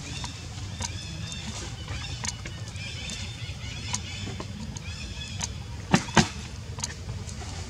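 Outdoor ambience: a steady low rumble with repeated high-pitched chirps over it, and two sharp clicks a fraction of a second apart about six seconds in.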